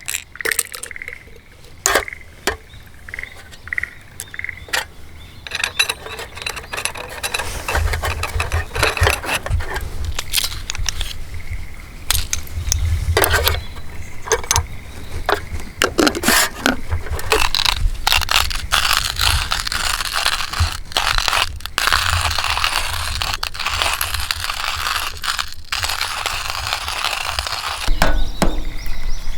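Cooking over a campfire: a utensil scraping and clinking in a pot, with sharp clicks and crackle, and a sizzling hiss that grows stronger in the second half.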